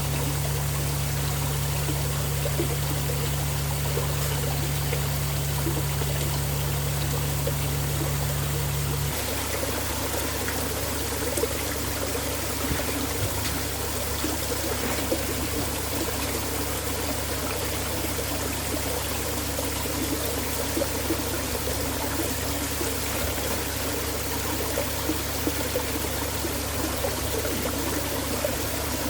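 Water running and splashing down an artificial garden waterfall, a steady rushing trickle. A low steady hum sits under it for the first nine seconds or so, then drops away.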